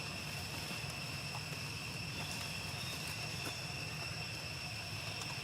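Steady background ambience: a constant high-pitched whine over a low rumble, with a few faint clicks.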